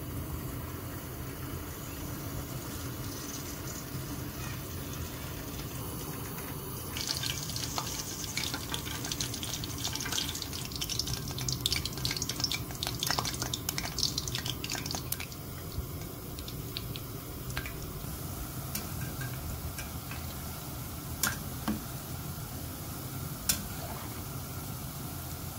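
Mini donut dough balls frying in hot oil: over a steady low hum, a dense sizzling crackle starts about seven seconds in as the dough goes into the oil, then thins to scattered pops. A few sharp clicks sound near the end.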